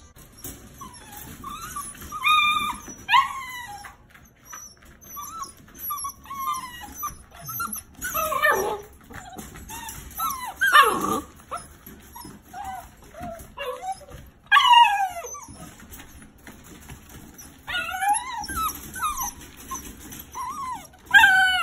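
Six-week-old puppies yipping and squeaking: short, high calls that fall steeply in pitch, coming in repeated bursts.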